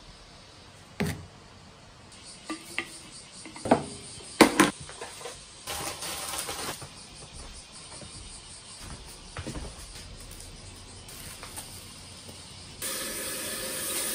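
Scattered clicks and knocks of kitchen handling: a scoop and spoon against a plastic shaker and containers. About thirteen seconds in, a tap starts running steadily into a sink.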